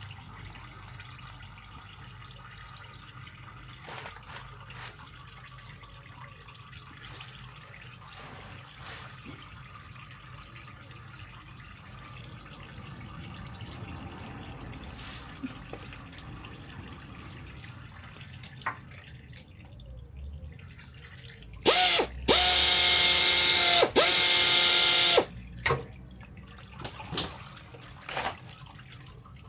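Pneumatic wrench running: a short blip, then two loud bursts of about three seconds in all, with a steady whirring pitch over a hiss. Scattered quieter clicks and knocks come before and after.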